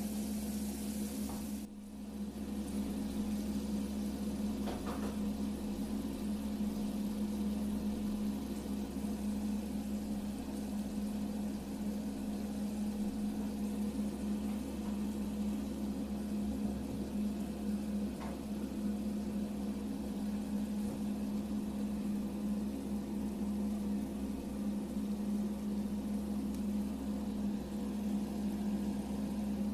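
A small motor humming steadily, with a soft hiss behind it; the sound dips briefly about two seconds in.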